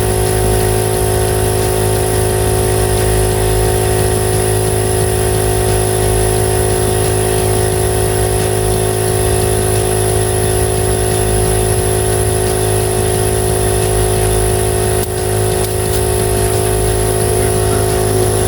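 Portable air compressor running steadily with a constant motor hum and a high whine, inflating a flat, old boat-trailer tire.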